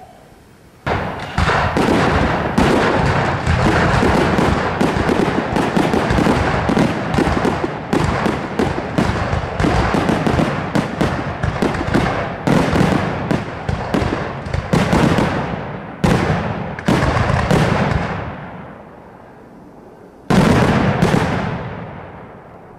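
A barrage of aerial fireworks going off in a rapid volley of bangs and crackling bursts. It starts about a second in, keeps up for some seventeen seconds, then dies away. Near the end, one last big burst goes off and fades out.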